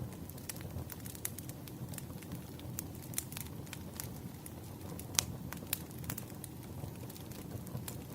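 Firewood burning, a steady low rumble of flames with irregular crackles and pops, the sharpest pop about five seconds in.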